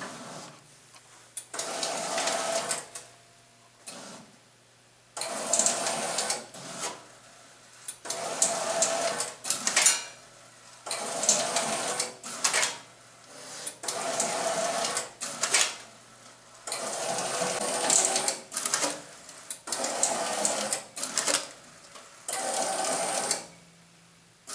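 Martin Yale GC10 business card slitter running, feeding and cutting sheets one after another with its rotary slitting and cross-cut blades. Each sheet makes a burst of mechanical whirring and clatter lasting a second or two, separated by short quieter pauses.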